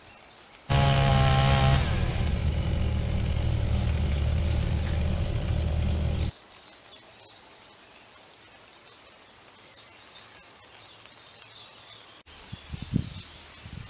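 Chainsaw running: it starts suddenly about a second in, is loudest for the first second, then runs steadily and cuts off abruptly about six seconds in. Birds chirp after it stops, and a few thumps come near the end.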